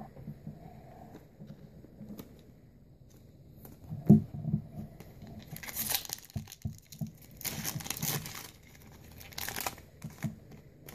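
Foil Pokémon booster pack wrapper being ripped open by hand, tearing and crinkling in three spells in the second half. A single knock comes before it, about four seconds in.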